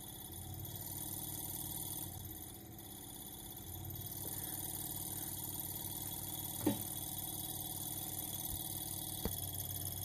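Vintage relay-oscillator telephone ringing generator buzzing steadily as its relay contacts switch back and forth, running a little slower under the load of a connected telephone ringer. Two short clicks come near the end.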